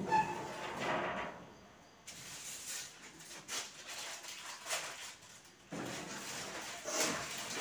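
Cloth rustling and soft knocks as clothes are handled and placed on the shelves of a wardrobe, in a small room.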